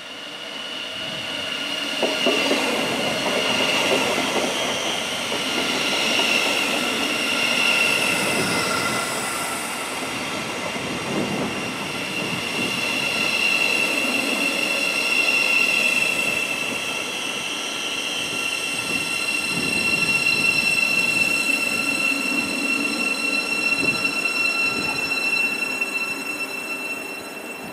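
Thameslink Class 700 electric multiple unit passing along the platform, wheels running on the rails, with a steady high-pitched whine held throughout; the sound swells and eases several times as the carriages go by.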